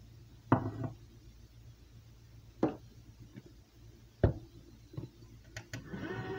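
Three sharp knocks about two seconds apart as a red tilt-head stand mixer is handled and its head lowered onto the steel bowl, then a couple of light clicks. Near the end the mixer's motor starts and runs with a steady hum, beginning to mix flour into creamed butter.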